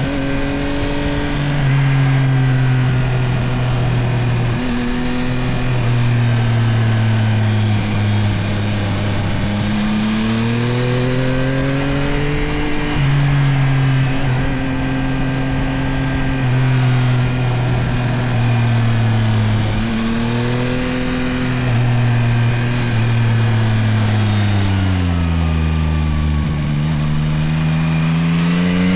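Yamaha CP3 890 cc inline-three engine of a Tracer 9 GT+ motorcycle under way, its pitch climbing under throttle and falling back on the overrun again and again. Near the end it drops low, then pulls up once more.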